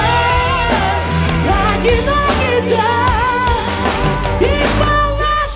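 Rock ballad instrumental break: a drum kit played with frequent cymbal crashes and a steady low bass line under a lead melody that bends and wavers with vibrato. Right at the end the drums drop out, leaving one held note.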